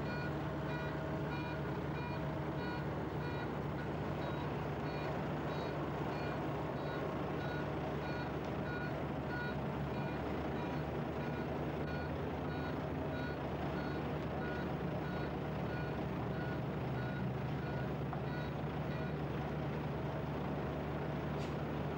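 Volvo FL6 truck's diesel engine running with a steady low hum, while a reversing alarm sounds regular short beeps.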